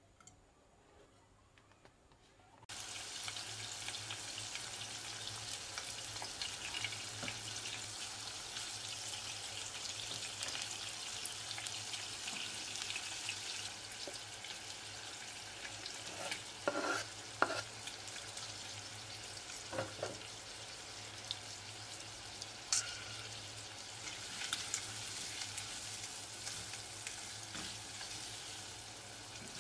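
Shrimp frying in hot vegetable oil in a nonstick pot: a steady sizzle that starts suddenly about three seconds in, with a low steady hum underneath. In the second half a few sharp knocks and scrapes of a spatula against the pot as the shrimp and chopped red onion are stirred.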